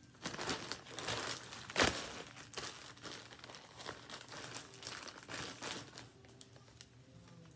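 Thin clear plastic packaging bag crinkling as it is handled and folded, in irregular crackles, loudest about two seconds in and dying away after about six seconds.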